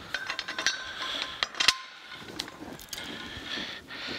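Steel parts of a homemade hydraulic press clinking and rattling as they are fitted together by hand: a run of light irregular metallic clicks with a couple of sharper knocks about a second and a half in.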